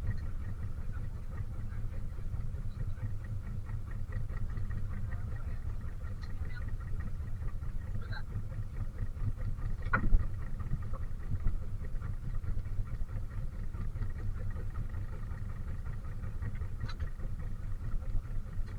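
Boat engine running steadily with a fine, even low throb, and one sharp knock about ten seconds in.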